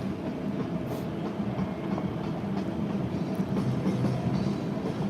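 Steady low rumble with a faint continuous hum: mechanical city background noise.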